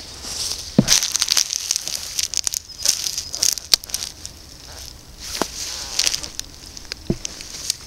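A black leather combat boot crushing a snack bar in its plastic wrapper underfoot: dense crackling and crunching of the wrapper and the snack inside as the sole grinds down on it. A dull thump about a second in and another near the end.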